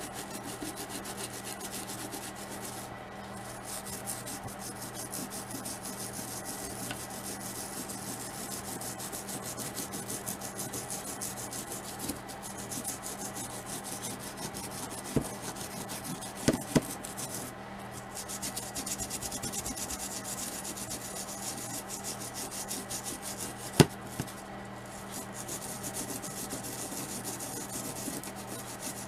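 Toothbrush bristles scrubbing paint off a wet plastic action figure: a steady, rapid scratching with brief pauses, broken by a few sharp clicks in the second half, the loudest about two-thirds of the way through.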